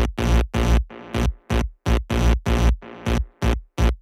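Bass-heavy electronic dance music played through a car-trunk sound system of big subwoofers and horn tweeters, chopped into short stabs about three times a second with silence between them.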